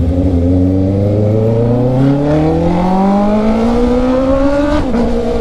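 Honda CB650R's inline-four engine pulling hard through a gear, its pitch rising steadily, then dropping abruptly at an upshift near the end.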